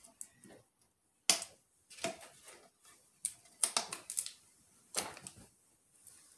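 A sticker label being peeled off a clear bowl by hand: irregular short, sharp crackles and clicks as the label pulls away and fingers tap the bowl, the sharpest about a second in.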